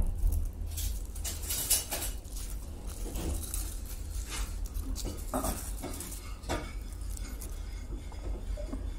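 Aluminium foil crinkling in several short crackly bursts as a foil-wrapped roll is handled, over a steady low hum.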